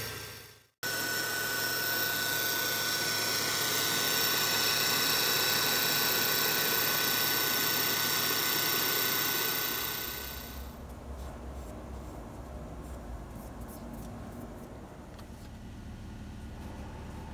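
Tool post grinder on a lathe grinding the end of a turning steel shaft: a steady machine whine with many fixed tones. It stops about ten seconds in, leaving a quieter low hum with a few faint clicks.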